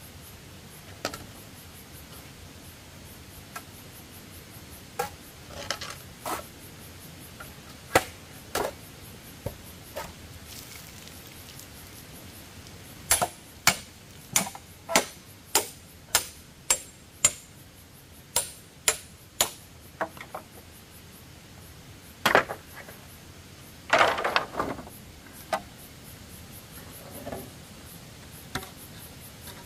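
Sharp knocks of a hand tool striking bamboo: scattered single blows, then a steady run of about a dozen strokes at roughly two a second, and a longer clatter of bamboo a few seconds later.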